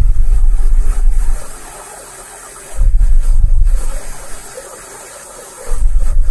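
Hypertherm Powermax65 plasma torch on a CNC table cutting 3/4-inch steel plate: the arc and air give a steady hiss, with three loud low rumbles about a second long, roughly every three seconds.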